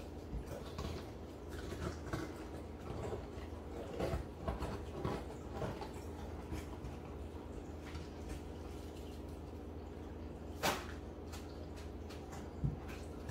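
Hands working inside the cavity of a raw whole chicken, soft wet handling noises of pulling out the giblets, over a steady low hum. A sharp knock comes about ten seconds in, and a softer thump near the end.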